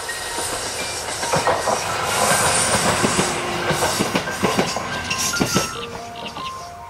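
KiHa E130-series diesel railcar passing close by, its engine and wheels running with a clickety-clack of wheels over rail joints. Loudest about two to three seconds in, then fading away near the end.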